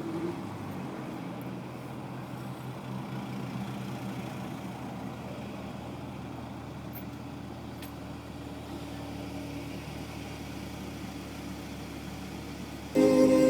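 BMW 745i V8 running steadily at low revs through a custom-made exhaust, a low, even engine hum. Loud music cuts in abruptly near the end.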